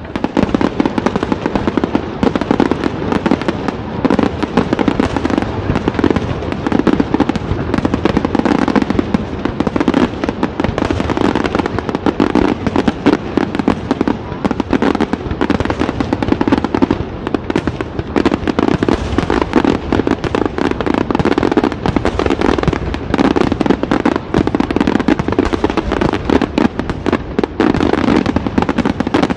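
Aerial fireworks display: a continuous rapid barrage of shell bursts and crackling stars, dense overlapping bangs with no pause, breaking out suddenly at the start.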